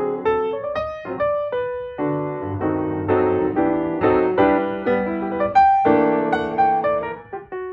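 Background piano music: a flowing line of struck notes over chords.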